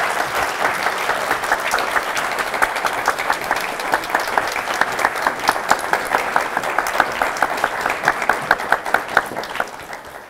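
An audience applauding in a hall after a speech. One close pair of hands claps out a quick, even beat above the rest, and the applause fades out near the end.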